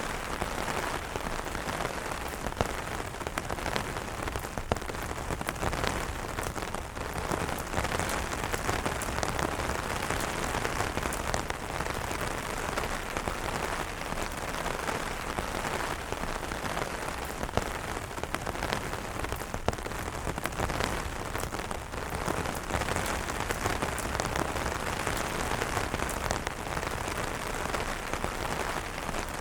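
Rain falling on umbrellas: a steady, dense hiss of drops with scattered sharper taps of single drops hitting the canopy.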